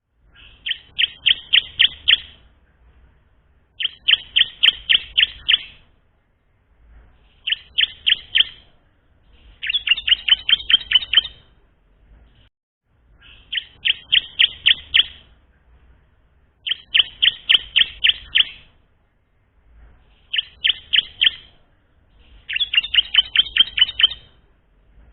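Bar-winged prinia (ciblek) singing as a young bird still learning its song. It gives eight short phrases of rapid, sharp chirps, several notes a second, with a pause of a second or two between phrases.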